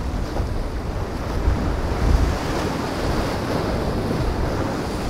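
Wind buffeting the microphone over the steady wash of breaking waves and boat wakes in choppy water, with gusty low rumbles and no clear engine note.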